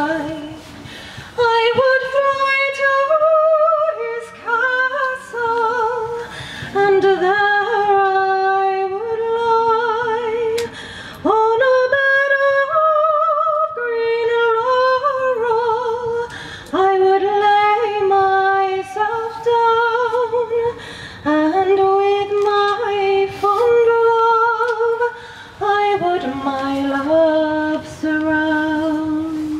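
A woman singing a slow melody in phrases of long held notes with vibrato, with short breaks between phrases and little sound under the voice.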